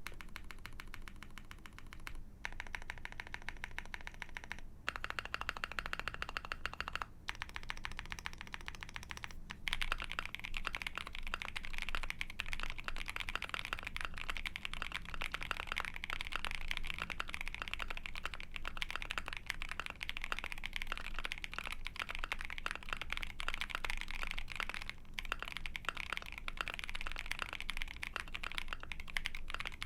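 Mechanical keyboard typing: an Ai03 Vega with a POM plate and lubed Poseidon linear switches (nylon housings, long-pole POM stem). Several short runs of rapid keypresses come first, each with a different pitch, then continuous fast typing from about ten seconds in. The keystrokes are pretty clacky.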